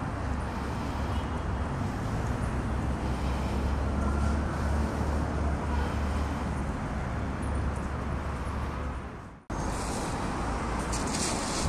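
Steady low rumble of distant city road traffic. The sound drops out sharply about nine and a half seconds in and comes straight back.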